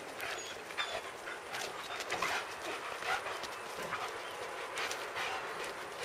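Czechoslovakian wolfdogs play-fighting: a scuffle of many short scrapes and taps from their paws on grass and gravel, with small sounds from the dogs themselves.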